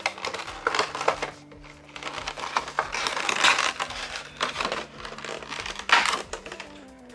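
Funko Pop packaging handled and opened: cardboard box and plastic insert crinkling and rustling with small clicks, loudest about three and a half seconds in and again near six seconds.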